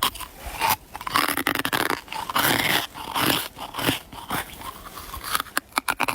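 A person biting and chewing chunks of ice or freezer frost close to the microphone: irregular crunches and cracks, some sharp, some longer grinding crunches.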